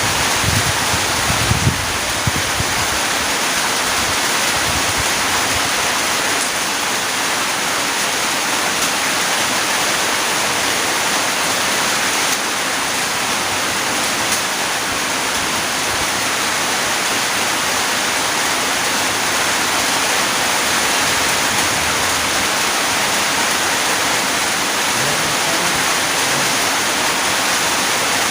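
Steady rain falling, a dense even hiss with a few soft low thumps in the first couple of seconds.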